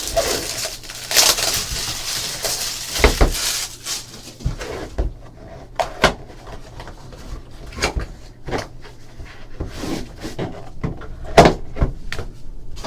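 A trading-card hobby box being opened by hand: plastic shrink-wrap crinkling and tearing for the first few seconds, then scattered sharp clicks and knocks of cardboard and packaging being handled.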